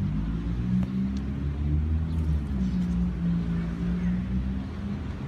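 A low engine drone that shifts pitch a little a few times.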